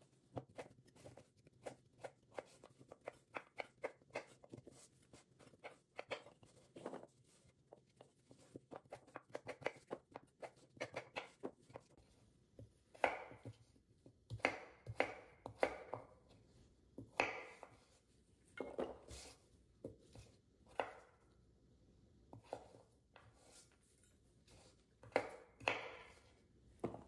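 Chef's knife chopping root vegetables on a wooden cutting board: a quick run of sharp knife taps for the first ten seconds or so, then slower, louder single cuts through the board.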